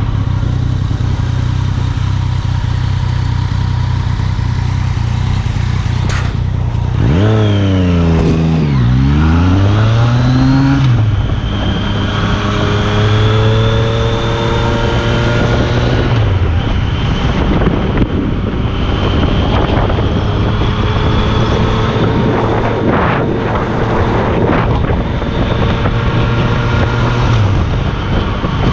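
Yamaha FZ-09's inline-three engine running through an Akrapovic carbon-fibre exhaust while being ridden. It runs at a steady engine speed at first; about seven seconds in, the note rises, dips and climbs again before settling, and it falls away near the end.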